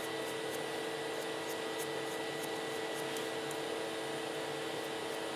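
Steady hum of a motor-driven machine running, with a few steady tones in it, and faint light ticks scattered over it.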